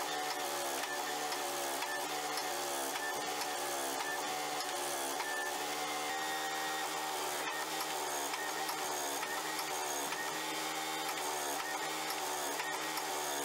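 Hydraulic forging press's pump motor running steadily, a continuous drone whose pitch dips slightly and recovers again and again as the ram is loaded against the hot steel billet.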